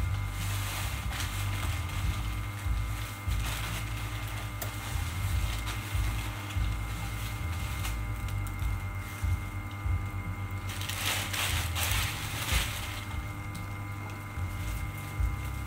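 A machine running with a steady low hum and steady tones, with a rough grinding noise over it that grows louder for a second or two about eleven seconds in.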